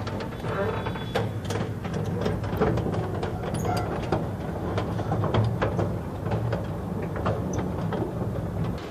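Double hinged steel belt chip conveyor running: a steady low hum with frequent irregular clicks and clanks from the hinged belt plates.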